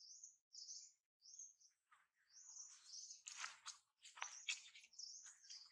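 Small birds chirping faintly: short high calls repeated every half second or so, with a few soft clicks or rustles in the second half.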